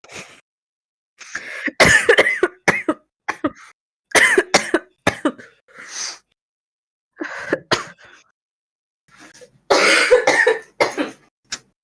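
A young woman coughing in several bouts of deep, barking coughs, the longest and loudest bout near the end: a chesty cough that the uploader puts down to smoking.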